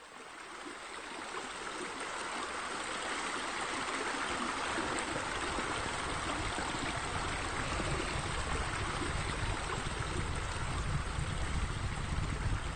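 A steady rushing noise that fades in over the first couple of seconds and then holds even, with a low rumble growing under it in the second half.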